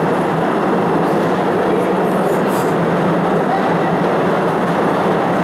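Postojna Cave tourist train running steadily along its narrow-gauge track, heard from an open carriage: an even rumbling noise over a steady low hum.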